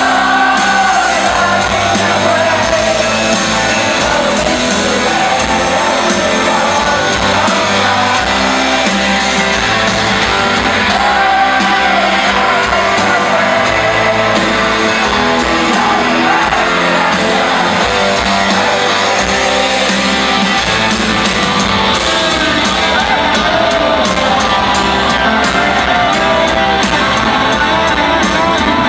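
Live rock band playing a song with guitars and singing, loud and unbroken, with shouting mixed in.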